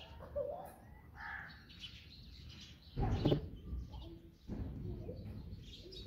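House sparrows chirping: short, scattered chirps, with a louder, noisier burst about three seconds in.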